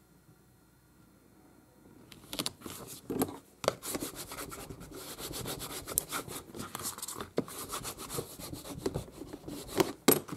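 Glued paper on a journal cover being rubbed down firmly by hand: a dense, uneven papery scraping, starting about two seconds in, with scattered light knocks.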